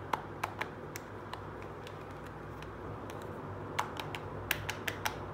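Light clicks and taps of hard plastic toy sandals being handled: a few near the start, then a quick cluster about four to five seconds in, over a steady low hum.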